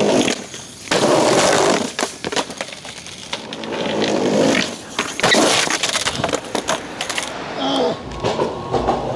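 Skateboard wheels rolling on concrete pavers, with repeated sharp clacks and knocks of the board hitting the ground during trick attempts, one of which ends in a fall.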